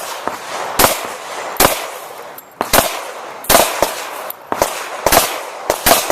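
Glock 21 .45 ACP pistol firing about ten shots at an irregular pace, some in quick pairs, each shot sharp with a short echo trailing off.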